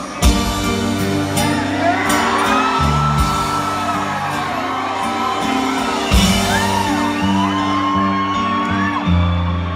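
A live rock band comes in together on a count-in, playing acoustic guitars, piano and drums, with a hit as they start just after the opening. Whoops from the audience ride over the music.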